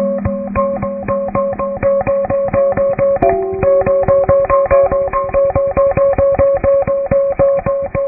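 Guitar music: a steady run of rapidly picked, evenly spaced notes, with the chord changing about three seconds in. It is the instrumental intro to a cowboy ballad.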